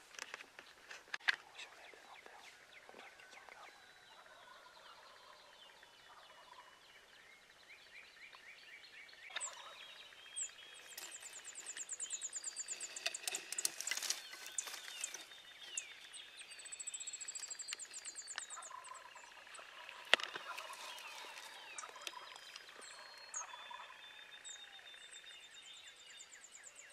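Dawn chorus of songbirds, many overlapping whistled and trilled songs, with a wild turkey gobbling in the distance a few times, loudest about halfway through.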